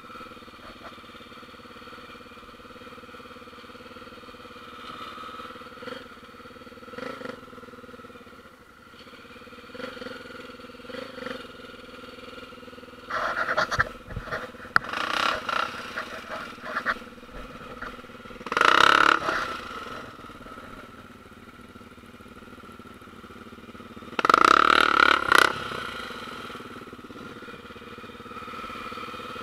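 Single-cylinder trail motorcycle engine running steadily, with several loud bursts about halfway through and again near the end.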